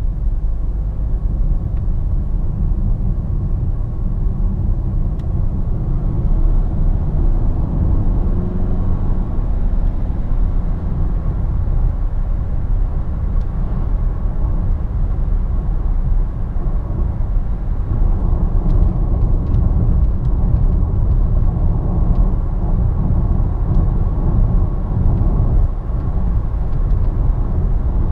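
In-cabin sound of a DS7 Crossback's 2.0 BlueHDi 180 four-cylinder turbodiesel accelerating from about 45 to 95 km/h and then cruising. It is a steady low rumble of engine and road noise.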